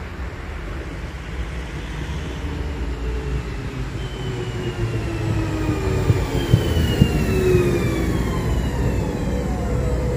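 Electric multiple unit running in alongside the platform: a low rumble builds as it comes close, with several electric whines falling slowly in pitch. A few sharp wheel knocks come about six to seven seconds in.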